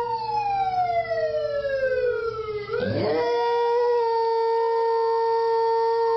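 Dogs howling: two long howls at once, one holding a steady note while the other slides slowly down in pitch. A short noisy burst comes about three seconds in, and new howls start right after it.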